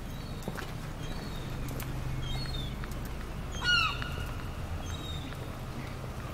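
A bird gives one loud, short call that slides downward in pitch about halfway through. Around it are repeated short, high, falling chirps from smaller birds, faint footsteps on pavement and a steady low hum.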